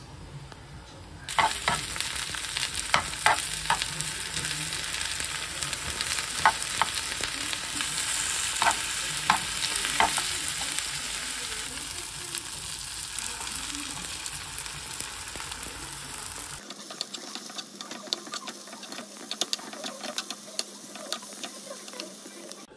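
Spinach and onion sizzling in oil in a nonstick frying pan as they are stir-fried, with sharp knocks of the utensil against the pan. About sixteen seconds in the sizzle turns quieter, with quick clicks of metal chopsticks scrambling beaten egg into the vegetables.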